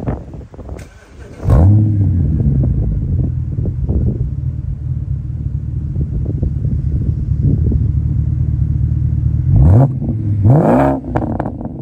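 A 2008 BMW 550i E60's V8 with its muffler deleted (a 3-inch pipe straight through to the tip) cold-started: the engine catches about a second and a half in with a flare in revs, then idles high and steady. Near the end it is revved twice in quick blips.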